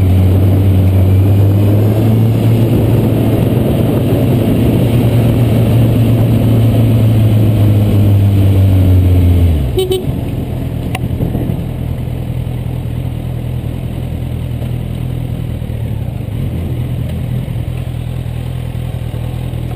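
Kawasaki Z800 inline-four engine running steadily at road speed, heard from on the bike. A little under halfway through the engine sound drops abruptly and goes on quieter and lower.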